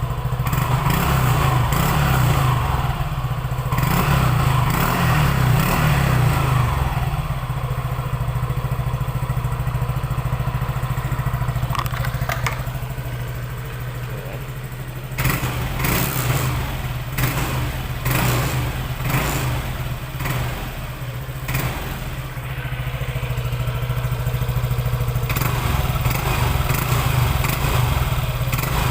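Yamaha NMAX scooter's single-cylinder engine running through an RS8 Power Pipe aftermarket exhaust with stainless elbow. The throttle is blipped and revved repeatedly between idle, with a run of short quick revs past the middle.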